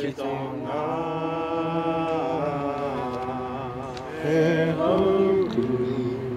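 A man's voice chanting a Māori karakia, a traditional blessing prayer, in long held notes at a steady pitch. It grows louder about four seconds in.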